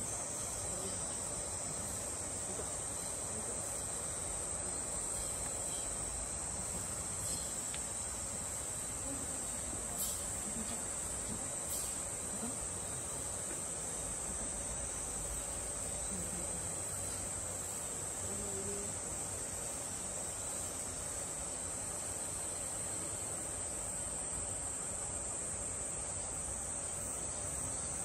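Steady, high-pitched chirring of an insect chorus that runs on without a break.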